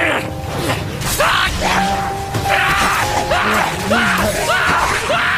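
Anime fight-scene audio: music under a quick series of whooshing sword-slash and impact effects, about two a second, with short shouts.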